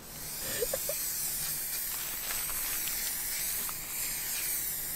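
Aerosol spray paint can spraying in a steady hiss.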